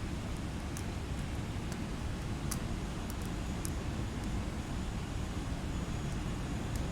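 Continuous sleep white noise: a steady, even hiss weighted toward a low rumble, with no change in level. A few faint high ticks sit on top of it.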